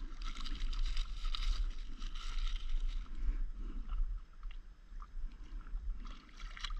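Small sea waves lapping and splashing against the hull of a stand-up paddleboard, uneven and continuous, over a steady low rumble on the microphone.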